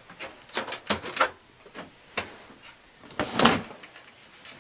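Desktop computer case's windowed side panel being unlatched and taken off: a string of clicks and knocks, then a louder sliding, clattering noise about three seconds in as the panel comes away.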